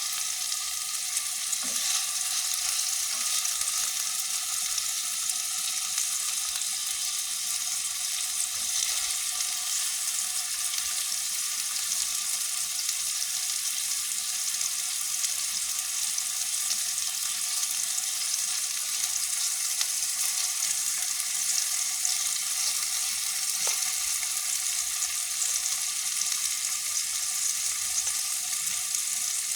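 Chicken meatballs frying in hot oil, a steady sizzling hiss with a few faint ticks.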